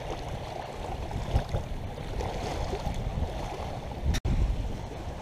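Small sea waves lapping and sloshing close to the microphone, with wind rumbling over it. The sound cuts out for an instant about four seconds in, then carries on the same.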